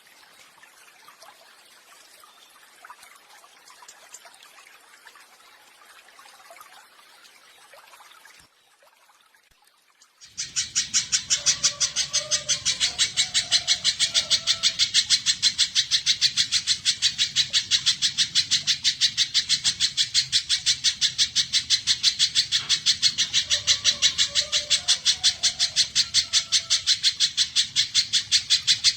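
Spiderhunter (pijantung) song from a songbird training recording: after a few faint seconds and a brief gap, a loud, fast, perfectly even run of sharp high notes starts about ten seconds in and carries on without a break, with softer lower whistles behind it twice.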